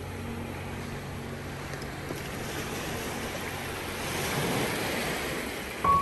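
Sea surf: a wave swells and washes in, growing louder through the middle and peaking shortly before the end.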